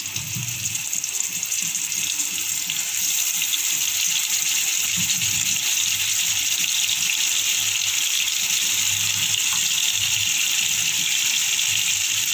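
Masala-coated fish steaks shallow-frying in oil in a frying pan: a steady sizzling hiss that grows louder about two to three seconds in as more pieces go into the oil, then holds steady.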